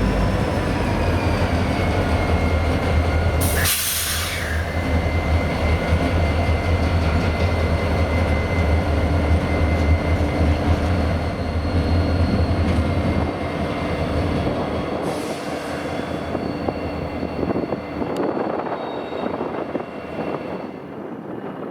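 Freight train rolling past at close range: a steady rumble of wheels and cars with thin, high-pitched wheel squeal tones over it. A short hiss comes about four seconds in, and a fainter one later. The low rumble eases after about thirteen seconds.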